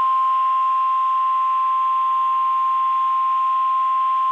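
A single steady, loud alert tone just above 1 kHz: the 1050 Hz warning alarm tone of NOAA Weather Radio, the attention signal sounded ahead of a National Weather Service warning message.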